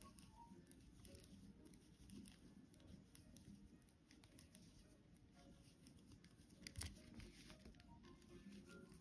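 Faint, soft clicking and rustling of knitting on 9-inch circular needles, with one sharper click about two-thirds of the way through.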